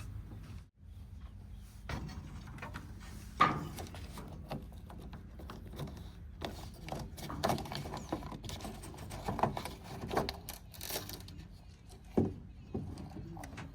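A steady low engine hum with irregular knocks and clatter over it, the sharpest about three and a half seconds in and again near the end.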